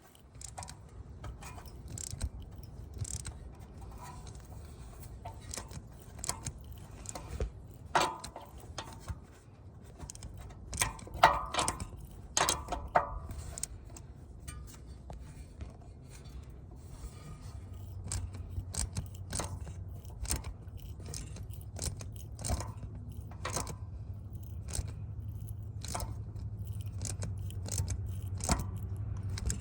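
Irregular metallic clicks and clinks of a wrench turning a Helicoil thread tap by hand in a drilled-out header bolt hole on an LS V8's cylinder head, cutting new threads. A low steady hum comes in about halfway and grows louder toward the end.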